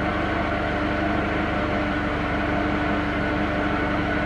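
Car lift's electric hydraulic pump motor running with a steady hum and a constant tone as the car is raised.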